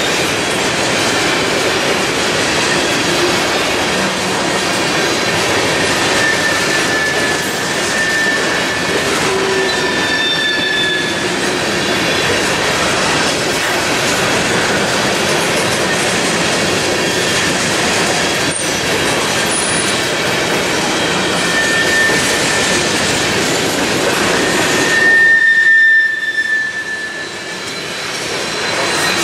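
Freight train cars rolling past on BNSF track: a steady rumble and rattle of wheels on rail, with brief high-pitched wheel squeals now and then. Near the end the sound swells, then drops away suddenly.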